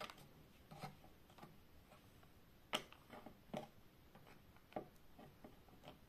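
Faint, scattered clicks and taps of small plastic toy food and a plastic toy plate being handled, about half a dozen light knocks with the loudest nearly three seconds in.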